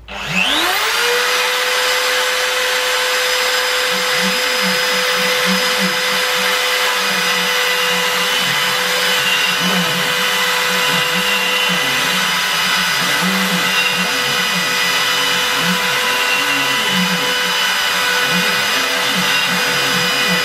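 CNC router spindle spinning up with a rising whine that settles within about a second into a steady high whine, then carving a wooden board. From about four seconds in, a lower wavering tone rises and falls repeatedly as the machine cuts and moves.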